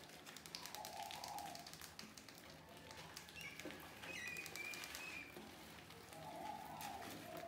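Mice scrabbling over a plastic bucket and a rubber balloon: a rapid patter of small scratching clicks from their claws. A few short bird calls sound in the background.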